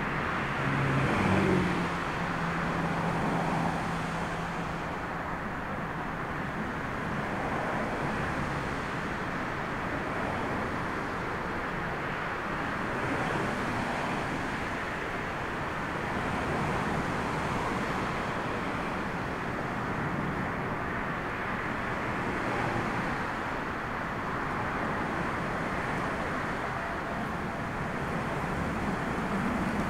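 Twin-engine Airbus A320-family jet airliner landing and rolling out on the runway: a steady jet roar, loudest a second or two in around touchdown, then a continuing even rumble as it decelerates.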